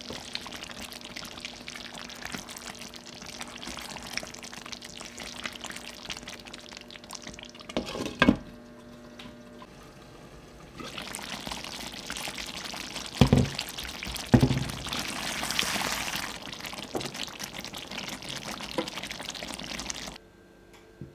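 Thick creamy korma gravy with chicken drumsticks simmering and bubbling in a nonstick pan, with a silicone spatula stirring through it at first. There are a few sharp knocks around the middle.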